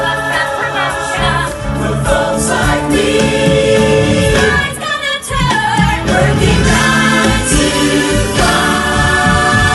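Live musical-theatre number: a cast singing together over loud backing music through an outdoor stage PA, heard from the audience. About halfway through the music briefly thins and a sliding note falls in pitch before the full sound returns.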